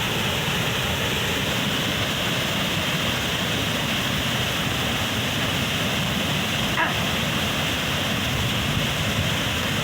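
Waterfall rushing: a steady, even roar of falling water, with a brief faint chirp about seven seconds in.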